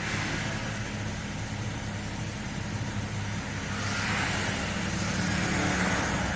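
AC blower fan of a Toyota Kijang Kapsul running noisily with the engine on: a steady low hum under an airy rush that grows louder about four seconds in.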